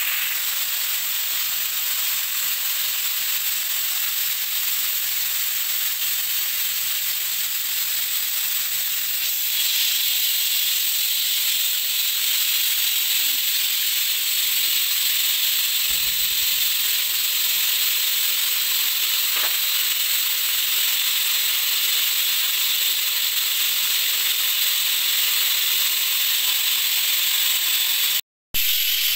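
Pieces of beef skin deep-frying in a pan of hot oil for chicharon: a steady sizzle and crackle that gets a little louder about a third of the way in and cuts out for an instant near the end.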